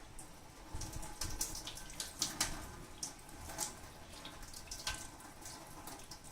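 Hot water poured from a kettle over a piece of crushed expanded-foam, splashing and trickling in irregular spurts.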